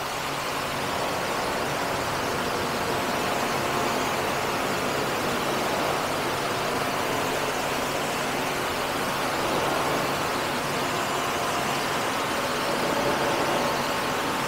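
Pressure washer running steadily, its pump motor humming under the hiss of the water jet as it rinses a car door panel.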